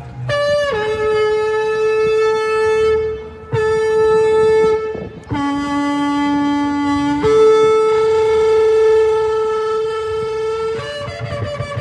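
Shofar (ram's horn) blown in three long blasts. The first starts on a brief higher note and drops to a held lower one. The second is shorter. The last starts low, steps up about two seconds in, holds for several seconds, and steps up again near the end.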